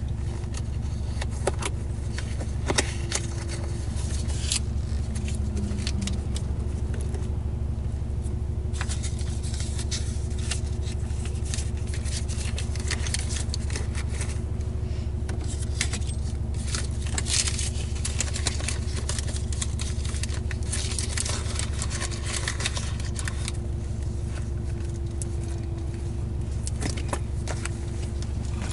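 Car engine idling with a steady low hum, heard from inside the cabin, under frequent rustling, scraping and small clinks of someone rummaging through a handbag.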